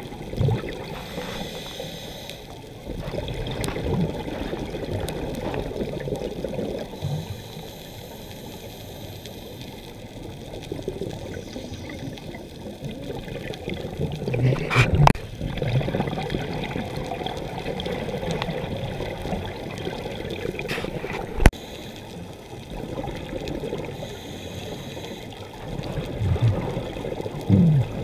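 Muffled underwater sound of a scuba dive: a steady wash with gurgling bubbles from the diver's exhaled air. The bubbling swells about halfway through and again near the end, and a single sharp click comes a little after two-thirds of the way.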